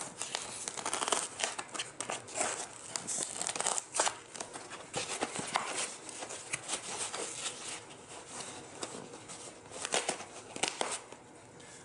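Dense PVC-like foam insert being twisted and torn out by hand: irregular crackling and tearing, busiest in the first half and again around ten seconds in.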